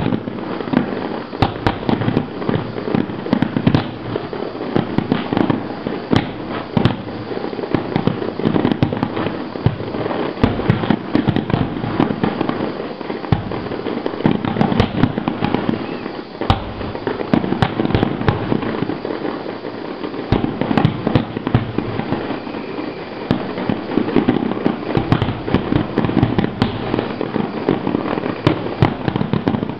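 Firework display finale: a dense, continuous barrage of shells bursting, a rapid string of bangs and crackles with no pauses.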